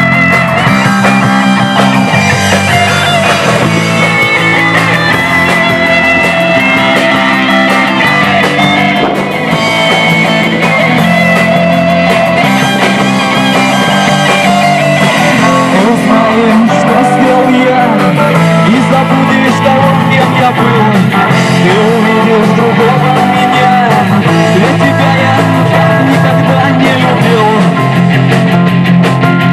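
Rock song in an instrumental passage led by guitar, playing steadily at full loudness.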